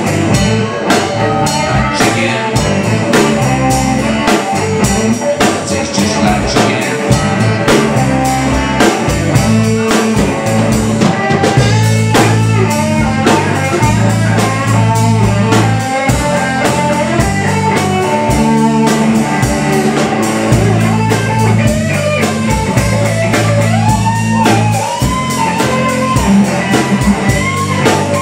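Live blues band playing an instrumental passage: electric guitars, bass and a drum kit keeping a steady beat, with lead notes that bend in pitch near the end.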